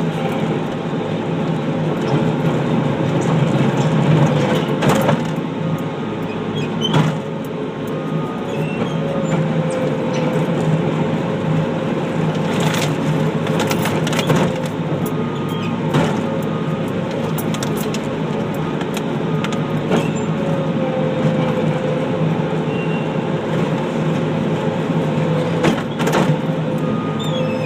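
Skid steer loader engine running steadily, with a handful of sharp knocks and clanks scattered through it.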